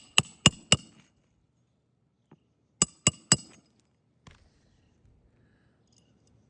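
Hammer driving roofing nails during a shingle repair: a quick run of sharp, ringing metal blows, then after about two seconds three more in quick succession, and one faint knock after that.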